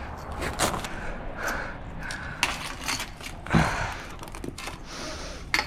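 Footsteps clacking and scuffing over loose rocks, irregular knocks with heavy breathing from the walker, who is out of breath from the climb.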